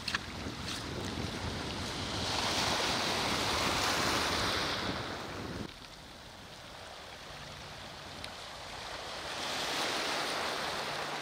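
Small waves washing onto a gravel and pebble beach, with wind on the microphone; the sound drops sharply about halfway through and swells again near the end.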